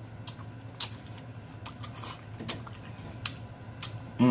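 Close-miked eating: irregular sharp, wet clicks and smacks of chewing and lip-smacking, about two a second.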